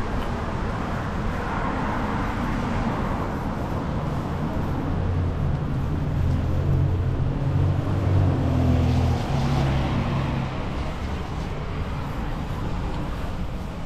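Street traffic on a wet road: cars passing with tyre hiss that swells and fades. A low, steady engine hum from a vehicle runs through the middle stretch, from about five to ten seconds in.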